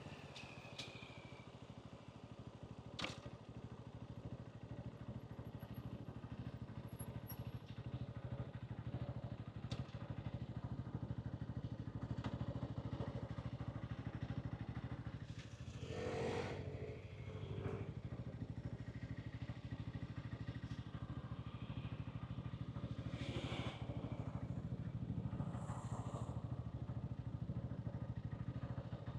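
A Hansom Bike 125cc motorcycle engine and exhaust running steadily while riding in city traffic, growing louder over the first several seconds as it pulls away. A sharp click comes about three seconds in, and other vehicles swell past around the middle and again later.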